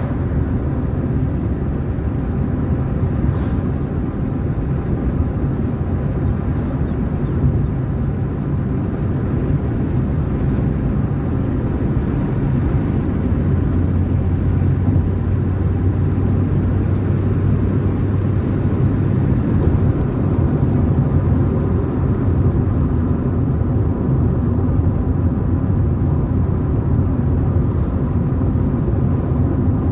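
Car driving along a road: steady engine and road noise, with a low engine hum that grows stronger for several seconds in the middle.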